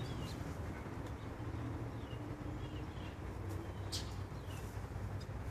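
Outdoor ambience of a low steady rumble with a few faint, brief bird chirps scattered through it. There is a faint held low note in the middle and a single short click about four seconds in.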